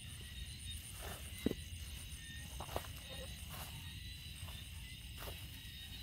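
Steady night chorus of frogs and insects: an even trill with a faster pulsing higher band. A few faint rustles and footsteps sound through the grass.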